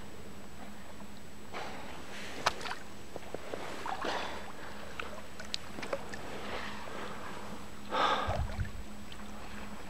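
Water sloshing and lapping around a kayak, with scattered light knocks and small splashes and a louder splash about eight seconds in.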